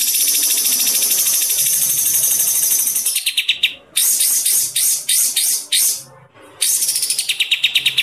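Songbirds singing loudly: long, rapid, high-pitched trills and chirps, broken by short pauses about halfway through and again near the end, with fast pulsed notes just before each pause.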